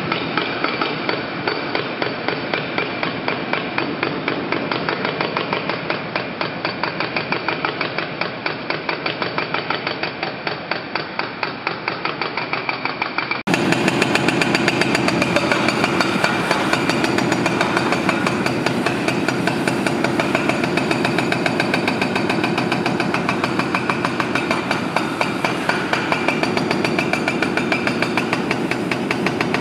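Excavator-mounted hydraulic breaker hammering concrete in rapid, evenly spaced blows. About halfway through it abruptly becomes louder and fuller, the pounding continuing at the same pace.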